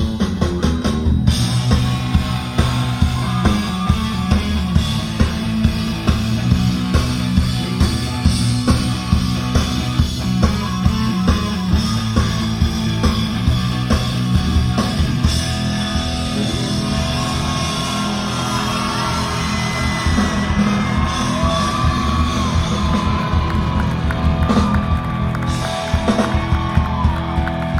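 Live rock band playing loudly, with a driving drum beat and heavy bass under high melodic lines that bend up and down in pitch.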